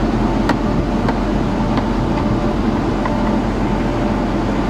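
Steady drone of a ship's machinery, with a few sharp metallic clicks as the latch handles of a free-fall lifeboat's entry hatch are turned and the hatch is swung open.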